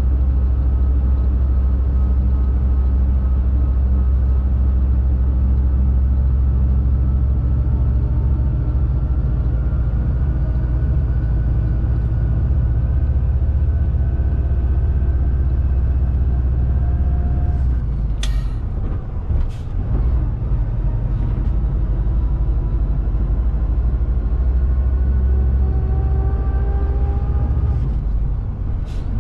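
Shacman X3000 heavy truck's diesel engine heard from inside the cab, a steady low drone whose pitch slowly climbs as the fully loaded truck pulls along. About two-thirds of the way through, the engine note drops away with a sharp hiss of air, then climbs again, and another short air hiss comes near the end.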